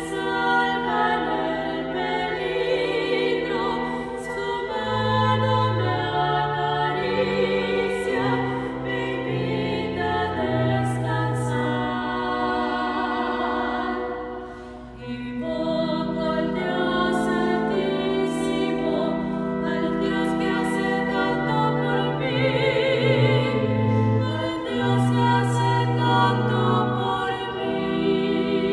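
Two sopranos singing a sacred duet with vibrato over held organ notes, with a brief lull about halfway through.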